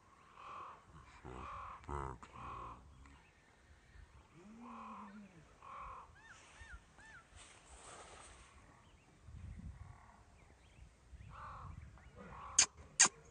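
Crows cawing, harsh calls coming singly and in twos and threes, with three short high chirps from a small bird about six seconds in. Two sharp, loud clicks come near the end.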